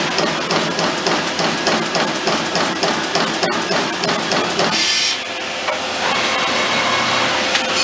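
Trumpf Trumatic 2020R CNC turret punch punching sheet metal in a fast, even string of strokes, about six a second. About five seconds in the punching stops with a short hiss, and the machine runs on with a steady hum.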